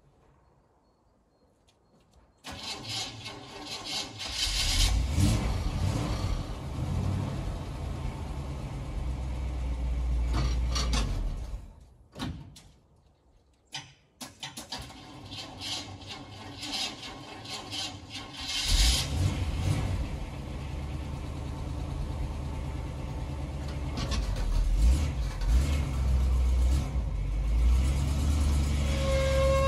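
1971 Chevrolet C30 ramp truck's engine, long unused, started after about two seconds of quiet and running with its revs rising and falling. It dies about twelve seconds in, is started again a couple of seconds later, and keeps running.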